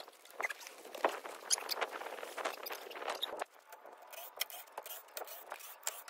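Light knocks, creaks and scrapes as a removed RV slide-out room is set down on a blanket-covered support and wooden boards are shifted beneath it. The noises are busier for the first three and a half seconds, then thin out to scattered clicks.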